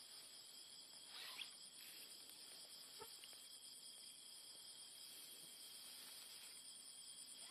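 Faint, steady chirring of crickets and other night insects: several high tones running together, the highest pulsing evenly. A short faint falling call comes about a second in.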